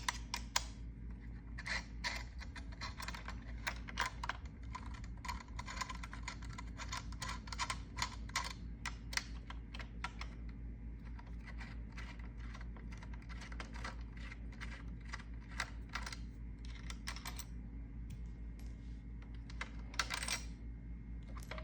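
Small, irregular clicks and taps of a screwdriver backing screws out of the plastic housing of a Craftsman 16-gauge cordless nailer and the parts being handled, over a steady low hum.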